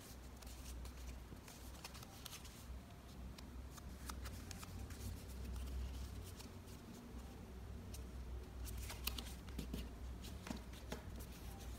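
Yellow origami paper rustling and crinkling under the fingers as it is folded and creased, in scattered soft crackles with a denser run of them about nine seconds in.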